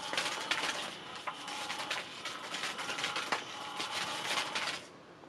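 Catch Me If You Can 2 electric cat toy running, its motor and plastic gears making a steady rattling whir, which cuts off suddenly near the end as the toy stops.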